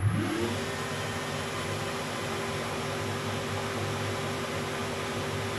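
Weiler Matador SV lathe starting up, its pitch rising to speed within the first half second, then running steadily with a mechanical hum and whine while it takes the final pass turning the workpiece's outer diameter.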